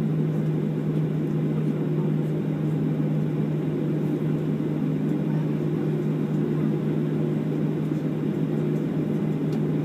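Steady drone inside a Boeing 737-700's passenger cabin on the ground, with a constant low hum over a rushing sound.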